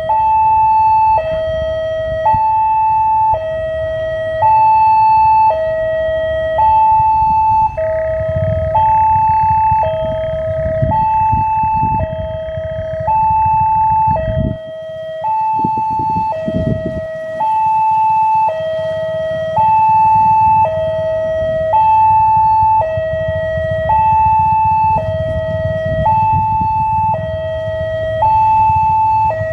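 Railway level-crossing warning siren giving a steady two-tone hi-lo alarm, each tone held about a second, signalling an approaching train. A low rumble runs underneath.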